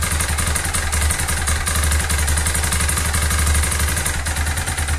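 Loncin JL250GY Rover's air-cooled single-cylinder engine idling with a rapid, regular, dry knock. The mechanic suspects a valve striking, possibly from a stretched timing chain that has jumped a tooth, with a connecting-rod knock also in question.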